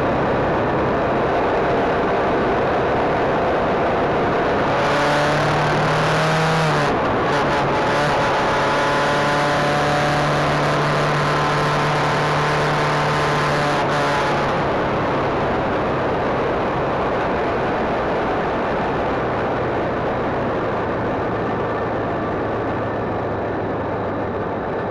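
Suzuki V-Strom 250 motorcycle riding along, its engine running under a strong rush of wind and road noise. The engine note climbs for a couple of seconds, drops sharply about seven seconds in as it changes up a gear, then runs steadily.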